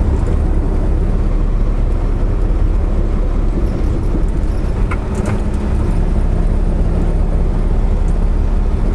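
Semi-truck's diesel engine running steadily with a low, even hum, with a faint click or two about five seconds in.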